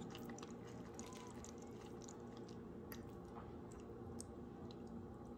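A fork cutting through soft baked butternut squash with a yogurt sauce: faint soft squishing with scattered light clicks of the fork tines on the plate.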